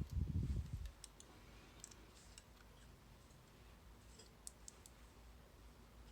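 Low handling bumps for about the first second, then a few faint, sharp, scattered clicks of small metal lock parts and tools being handled while a Mul-T-Lock Interactive cam lock is worked on and taken apart.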